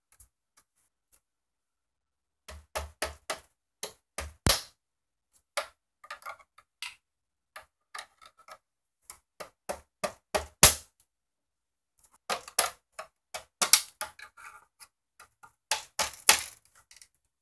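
Irregular sharp clicks and knocks of a flat screwdriver being driven into the seam of a Planar PL2210MW monitor's plastic case to prise its snap-clipped back cover apart. There is a brief pause a little past the middle, and the loudest knock comes just before it.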